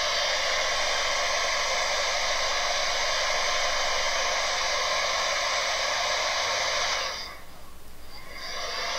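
DeWalt D26411 heat gun running, its fan blowing a steady rush of air with a faint hum in it; the fan runs again because the broken fine tungsten wire that feeds its motor has been reconnected. About seven seconds in the sound drops away briefly and then comes back.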